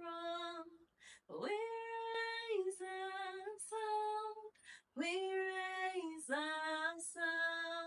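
A woman singing a worship song unaccompanied: a single voice holding long notes, with short breaths between phrases, about a second in and again near five seconds.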